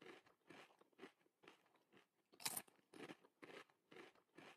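Faint crunching noises in short bursts, about two a second, with one louder burst about halfway through.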